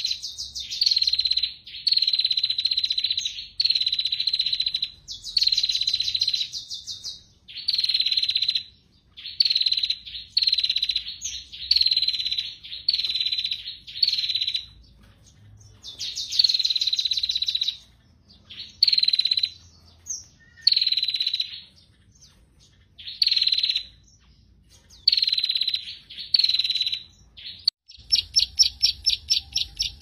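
A prinia singing: a high-pitched, buzzy rapid trill about a second long, repeated over and over with short pauses. About two seconds before the end a different run of quick, sharp ticking notes starts.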